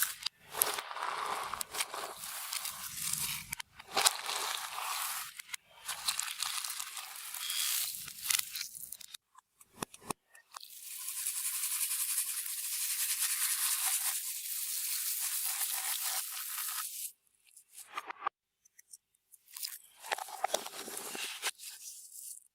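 Clear slime being kneaded and squished by hand, with sticky crackles and sharp pops in irregular bursts. About halfway through there is a steadier high hiss lasting some six seconds.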